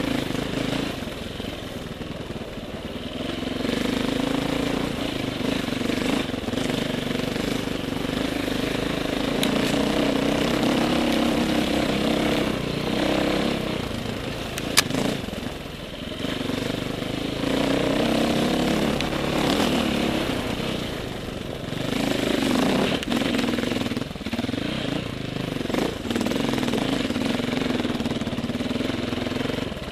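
Dirt bike engine running under load along a trail, its pitch rising and falling with the throttle, with one sharp knock about halfway through.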